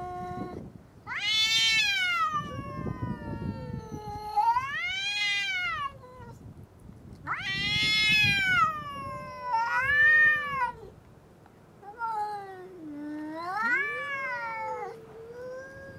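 Two domestic cats yowling at each other in a standoff: long, drawn-out wavering howls that rise and fall in pitch, one call overlapping or answering the other, about half a dozen in all. The loudest come early on and again in the middle.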